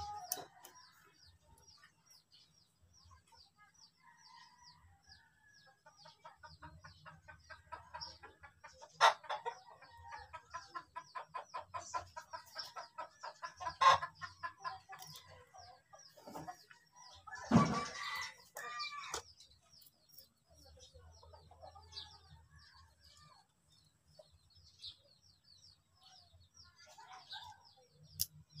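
Chickens clucking in a run of quick repeated calls, with a louder call a little past halfway, over faint steady chirping of small birds. A few sharp clicks stand out.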